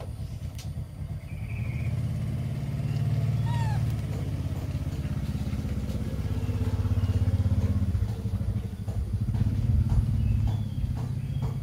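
A small engine running steadily nearby: a low pulsing drone that swells a little around seven seconds in. A few short high falling squeaks come about three and a half seconds in.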